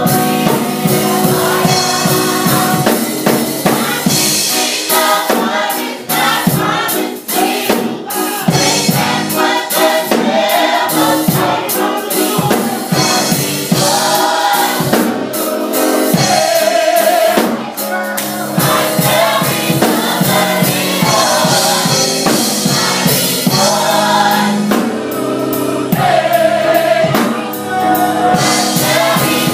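Young adult gospel choir singing in harmony, backed by a drum kit.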